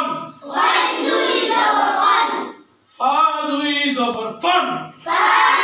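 A class of boys chanting in unison, repeating Arabic letter sounds with tanween after their teacher. The group chants first, the teacher's single voice leads about three seconds in, and the group answers again near the end: a call-and-response rote drill.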